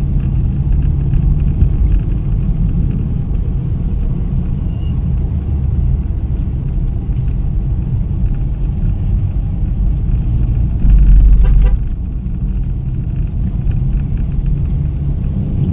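Toyota Corolla EE100 on the move, with steady low engine and road rumble. About two-thirds of the way through, a louder, deeper rumble lasts just under a second.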